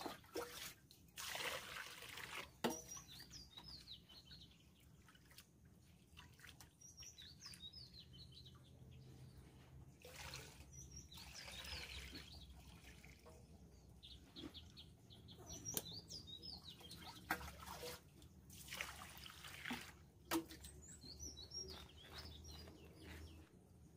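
Water scooped from a large clay jar and poured and sloshed in metal pots as rice is rinsed, in several separate pours of a second or two. Small birds chirp now and then.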